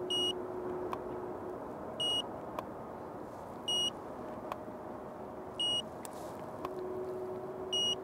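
A battery-powered 200 Ws flash head firing over and over, about every two seconds. Each firing gives a faint click, and about a second later a short high ready beep as it recycles. A steady low hum runs underneath.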